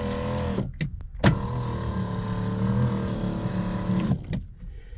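Mercedes W126 rear electric seat adjuster, with its newly fitted motor, running with a steady hum. It stops a little way in, two sharp clicks follow, and then it runs again for about three seconds before stopping. With the seat upholstery off and the mechanism exposed, it is a little bit noisy.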